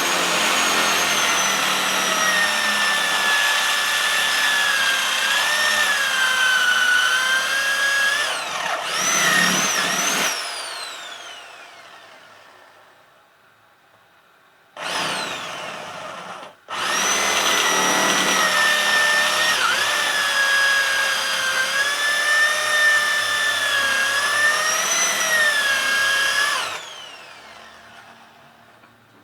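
Electric hand drill drilling out a rivet in a washing-machine motor cover, its motor whine dipping in pitch as the bit bites. It runs for about ten seconds and winds down, gives a short burst about fifteen seconds in, then runs again for about ten seconds before winding down near the end. This is the stage of boring into the rivet heads so they can be popped off and the motor opened.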